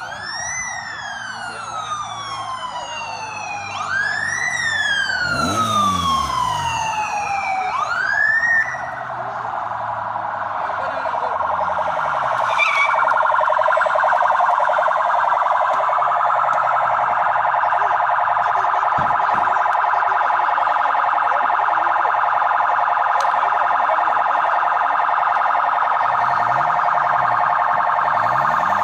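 Electronic convoy sirens: three wails that each rise quickly and fall slowly over the first nine seconds, then a fast, steady warble that continues for the rest.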